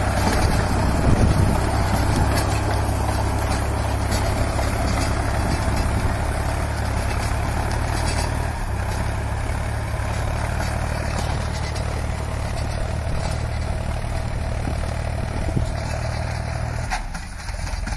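Solis Yanmar 5015 4WD tractor running steadily under load, its engine droning as it drives a 7.5-foot rotavator tilling hard soil. The sound dips briefly near the end, with a single click.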